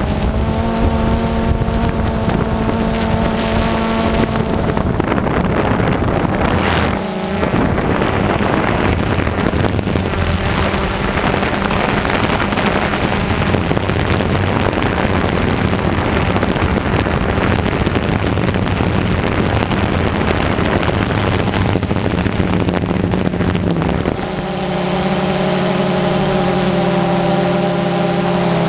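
Small multirotor drone's propellers humming steadily in flight. Through the middle the hum gives way to a dense wind rush over the microphone, then returns clearly about 24 seconds in.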